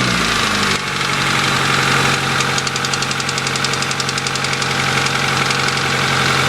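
1992 Honda Accord's four-cylinder engine running, its speed settling down in the first second, with a rapid, even ticking/knocking over the engine note. The owner is unsure whether it is a rod knock or valves that need adjusting.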